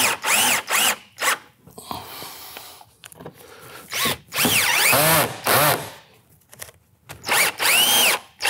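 Cordless drill driving self-sealing threaded fasteners through steel counter flashing, in clusters of short bursts that each rise and fall in pitch as the motor speeds up and slows. Each screw is run down just until its sealing washer seats, without overcompressing it.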